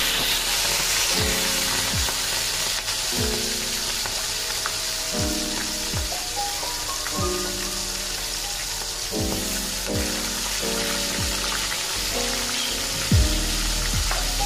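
Hot oil sizzling steadily in a wok as prawns fry, over background music with a regular low beat.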